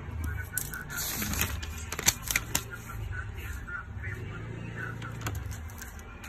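Paper notebook pages being handled and turned: a run of crackling clicks and rustles in the first half, the loudest about two seconds in, over a steady low hum.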